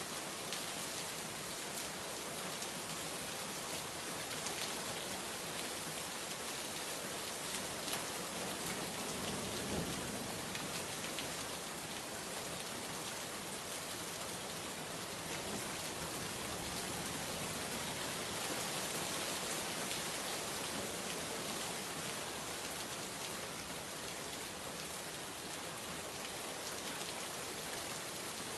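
Steady rainfall: an even hiss of many drops striking surfaces, with a brief soft low rumble swelling about ten seconds in.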